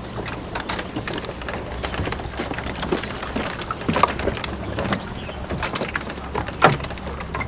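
Irregular wooden knocks and clatters of oars working in a rowing boat's rowlocks, with splashing, over a low steady hum.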